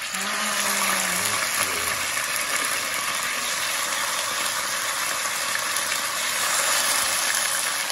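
Chicken breast fillets sizzling in hot olive oil in a frying pan: a steady frying hiss that starts as the first pieces go in and holds as more are added.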